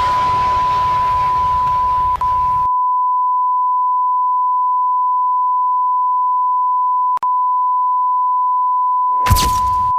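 A steady electronic beep, one pure pitch held without a break. A rushing noise sits under it for the first two and a half seconds, there is a brief blip about seven seconds in, and a short noisy burst comes near the end.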